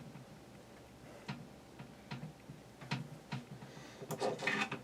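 Light clicks and ticks from hand tools and wires being handled while the box fan's switch is rewired: a few scattered single clicks, then a quick cluster near the end.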